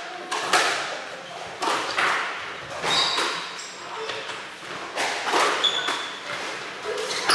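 A squash rally: the ball is struck by racket strings and smacks off the court walls in a run of sharp hits, one every second or so, echoing in the enclosed court. Short high squeaks of court shoes on the wooden floor come between the hits.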